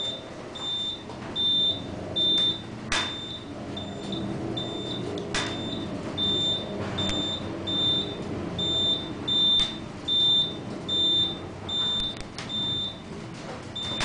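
Elevator floor-passing beeps: a short high beep repeating evenly about every two-thirds of a second as the high-speed car passes floor after floor on its way down, over the low steady hum of the moving car, with a few sharp clicks.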